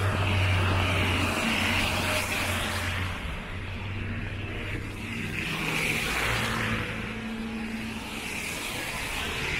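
Cars driving past one after another on a wet, slushy street, their tyres hissing on the wet pavement over a low engine hum; the hiss swells and fades with each passing car.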